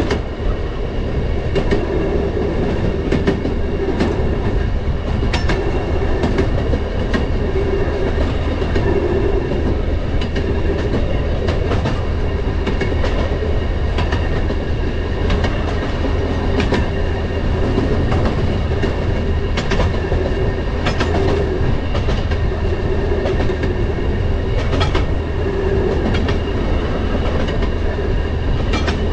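Railroad track motorcar (speeder) running along the rails: a steady drone of engine and wheels, with sharp clicks as the wheels cross rail joints every second or few.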